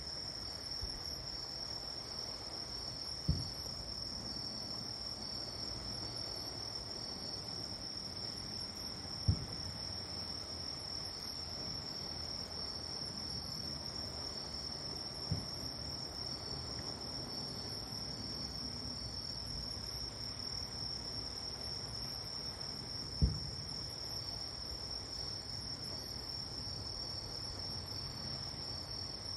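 Crickets chirring steadily, with a second pulsing insect trill coming and going. Four dull low booms of distant fireworks sound over them, several seconds apart.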